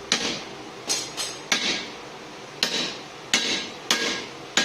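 Hand hammer blows on steel, about eight sharp ringing strikes at an uneven pace, driving a drift through the punched eye of a hot hammer head forged from forklift fork.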